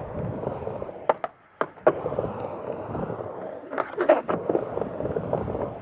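Skateboard rolling back and forth on a vert ramp, its wheels rumbling steadily. Sharp clacks of the board and trucks come in pairs about a second in and just before two seconds, then as a cluster around four seconds.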